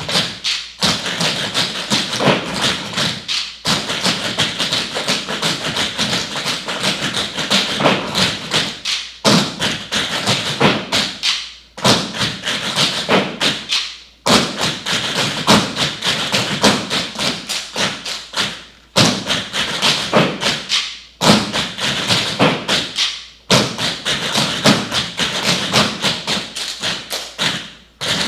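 A group of tap dancers' shoes striking a wooden floor together, rapid rhythmic tapping in phrases broken by short pauses every few seconds.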